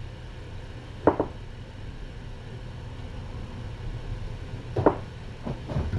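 Kittens thundering around while they play, with a low rumble and two short knocks, one about a second in and one near five seconds.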